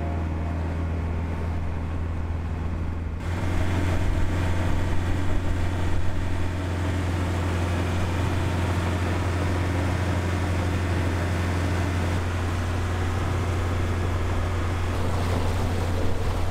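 Sailboat under way at sea: wind on the microphone and water rushing past the hull, over a steady low rumble. The sound shifts at a cut about three seconds in, becoming louder.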